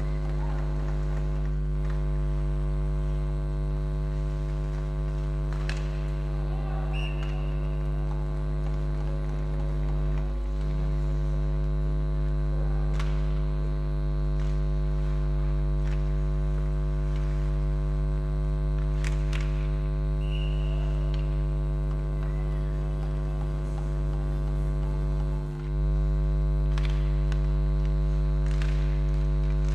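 Steady electrical hum with many evenly spaced overtones, the loudest sound throughout. A few faint sharp knocks come through now and then.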